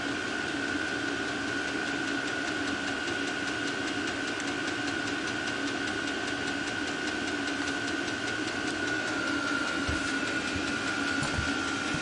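Chinese diesel air heater running: a steady high whine from its blower over a low hum, with a light, fast, regular ticking through the middle and a few soft bumps near the end.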